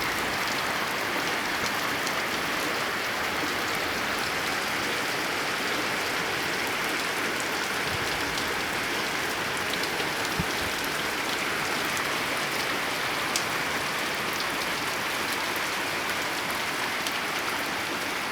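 Heavy rain falling steadily on a tin roof: an even hiss with scattered sharp drop ticks.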